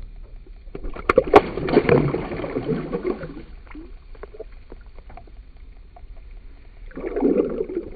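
Water splashing and sloshing as a yellow bass is released from a hand at the lake surface and kicks away, with a few sharp splashes about a second in. A second, shorter splash comes near the end.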